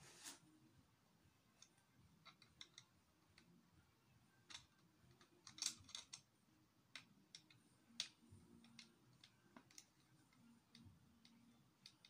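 Plastic Lego bricks clicking and knocking as they are handled and pressed together: faint, irregular clicks, with a sharper cluster around the middle.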